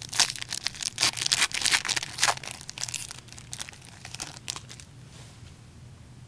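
A hockey trading-card pack's wrapper being torn open and crinkled, a run of sharp crackles that dies away about four and a half seconds in.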